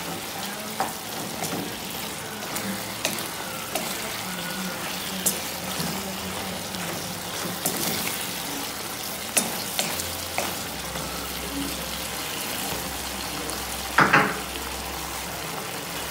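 Goat meat, peas and tomatoes sizzling and simmering in a non-stick frying pan while a wooden spoon stirs and scrapes through them. The spoon knocks lightly against the pan now and then, with one louder knock near the end.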